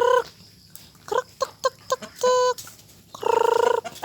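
A woman calling chickens to come and feed, with long drawn-out calls at a steady pitch, three of them, and a few short quick calls in between.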